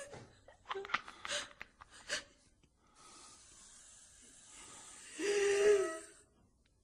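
A person's short breaths and gasps, then a faint hiss, and near the end a held voiced sound of about a second, like a low moan.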